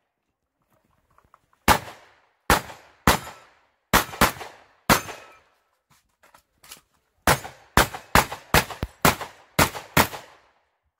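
Rifle shots fired one at a time in a fast string, each a sharp crack with a short echo. There are about six shots over three seconds starting near two seconds in, a brief pause with a few faint clicks, then about nine quicker shots.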